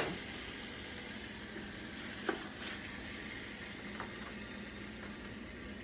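Chicken legs sizzling in hot olive oil in a pot: a steady frying hiss, with a couple of light clicks from pieces or a utensil touching the pot.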